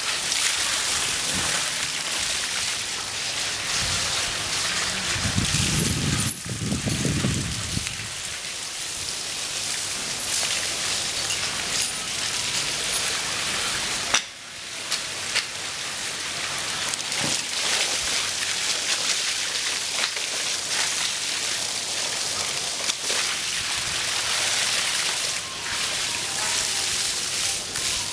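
Water from a garden hose spraying and splashing over a bathing elephant's hide and the wet ground, a steady rain-like hiss.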